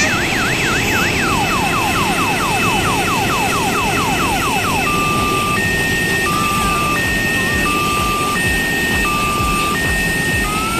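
Odong-odong tourist ride vehicle running with a steady engine-like noise, while its electronic siren cycles through patterns: a fast up-and-down warble, then a string of quick falling sweeps, then a slow two-tone high-low alternation about half a second a tone, and rising whoops near the end.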